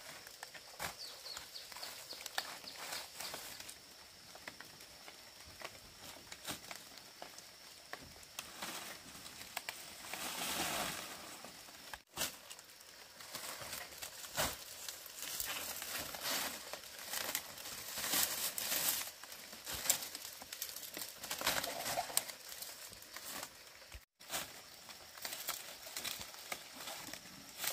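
Dry palm-leaf thatch rustling and crackling as it is pulled off a roof frame and handled, in irregular clusters of crackles.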